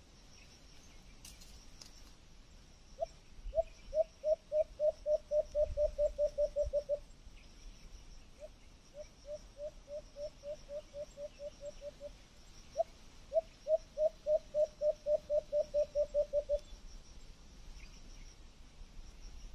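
An animal calling in three runs of short, clear, repeated calls at one pitch, each run speeding up to about four or five calls a second, with brief pauses between the runs.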